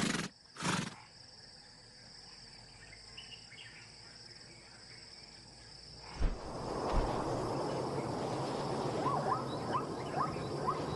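Savanna ambience with a steady, high-pitched drone of crickets or other insects. A short snort from a zebra comes right at the start. About six seconds in, a louder rushing noise sets in, and near the end a few short rising calls repeat over it.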